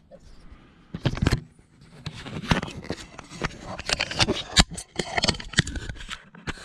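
A run of irregular clicks, knocks and scrapes, like things being handled and set down, with a louder knock about a second in.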